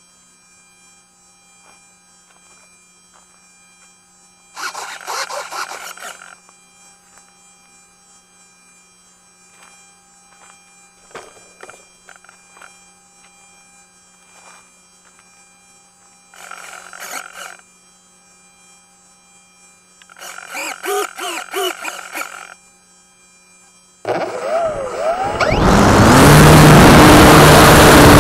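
Electric motor and propeller of a Multiplex FunCub RC plane, heard from a camera on its nose: faint steady low hum and a few short bursts of sound, then near the end the motor winds up with a rising whine to full throttle and runs loud and steady for the takeoff.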